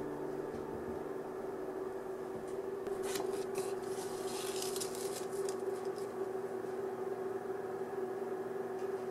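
Paper rustling and scraping as a kraft-paper card is handled and slid under the string on a paper-wrapped package, mostly between about three and six seconds in, over a steady low hum.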